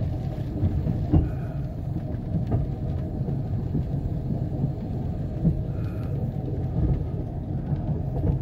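Steady low rumble of a truck riding along a railroad track, heard from inside the cab, with a few faint knocks.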